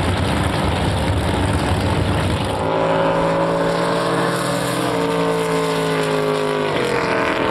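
Drag boat engines running at full throttle during a race pass. From about three seconds in they give a steady, high-revving drone that drops slightly in pitch twice in the second half.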